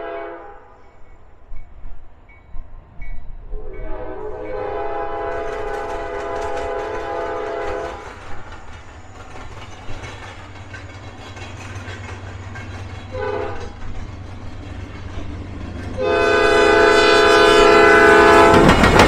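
Locomotive air horn sounding the grade-crossing signal: the tail of one blast, then a long blast, a short one and a final long one, each a chord of several tones. A steady low train rumble lies underneath.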